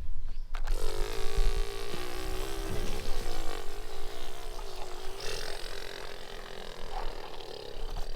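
Construction machine engine sound: a steady low rumble, joined under a second in by a droning motor tone that wavers in pitch.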